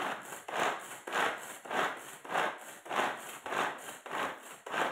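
Hand-operated vegetable chopper finely chopping onion: its blades whirring through the onion in a steady rhythm of strokes, about one every half second, some nine in all.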